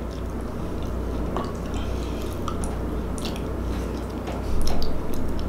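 Close-up mouth sounds of eating: wet chewing and lip-smacking with small clicks, over a steady low hum. A louder mouthful comes near the end as another spoonful is taken.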